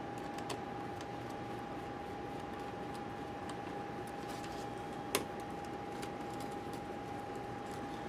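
Small screwdriver clicking and ticking as screws are driven back into the opened laptop's metal chassis, with one sharper click about five seconds in, over a steady hiss and a constant thin high tone.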